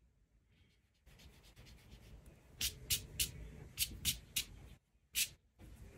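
Graphite pencil sketching on paper. Near silence for about the first second, then light rubbing, then a run of about seven short, quick pencil strokes in the second half.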